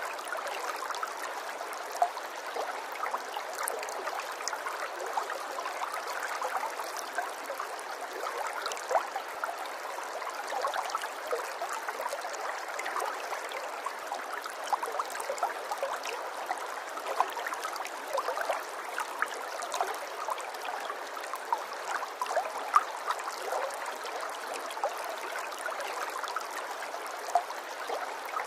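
Running water trickling and gurgling steadily, with frequent short bubbling splashes throughout.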